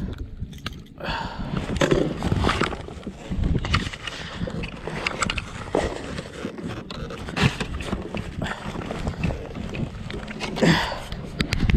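Handling noise on a plastic fishing kayak: irregular knocks, taps and rustles as a just-caught crappie and the lure are handled, over a steady low rumble of wind on the chest-mounted microphone.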